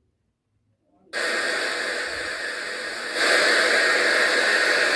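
Ahuja SPA 10000 amplifier playing through a speaker as its volume is opened: a steady hiss cuts in suddenly about a second in and steps louder about three seconds in. It is the sign that the amplifier, repaired for a no-sound fault, now passes sound.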